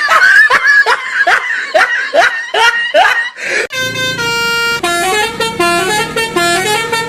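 A quick run of short, rising whoops, about two a second, then a multi-note horn tune played in steps, in the style of an Indonesian 'telolet' bus horn.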